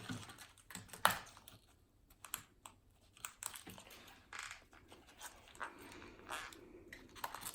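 Irregular light clicks and crinkles of plastic slime packaging being handled and peeled open, with one sharper click about a second in.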